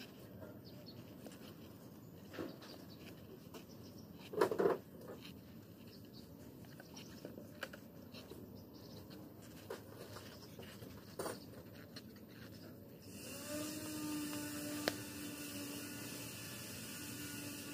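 Faint scattered knocks and scrapes of the insulated copper air-conditioner line set being handled and straightened on a concrete road, with a louder clatter about four and a half seconds in and another near eleven seconds. About thirteen seconds in, a steady hum with a rise in hiss comes in.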